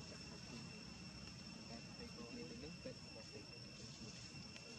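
Faint, steady high-pitched insect drone, with distant voices murmuring underneath.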